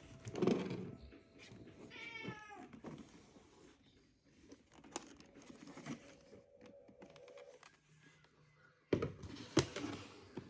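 A cat meows once about two seconds in, a short call falling in pitch, among scattered knocks and clicks of handling.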